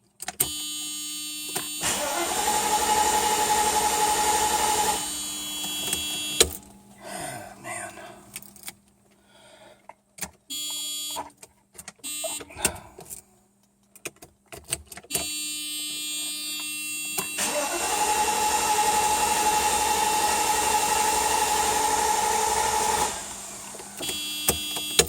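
A car that won't start: a steady electronic warning tone sounds, then the starter runs for a few seconds with a steady whine and stops without the engine catching. The sequence happens twice, with clicks in between.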